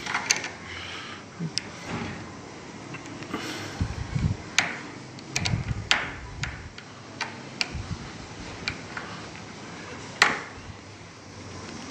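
Scattered light metal clicks and low knocks from a door lock being taken apart by hand, with one sharp click about ten seconds in the loudest.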